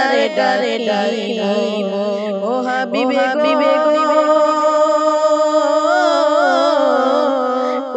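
A boy's solo voice singing a qasida, an Islamic devotional song, in long melodic lines that bend and waver in pitch.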